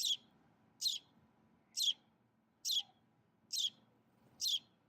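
A sparrow chirping: single short, high chirps repeated evenly about once a second, six in all.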